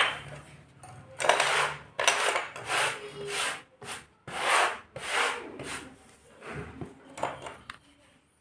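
A hand rubbing and sweeping rangoli powder across a hard board in a series of short strokes, starting about a second in and ending shortly before the end.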